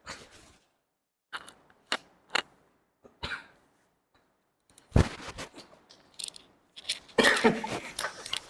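A person's short sniffs and cough-like bursts while working up a forced sneeze. About five seconds in comes a loud sudden burst, and near the end a stretch of jumbled noise.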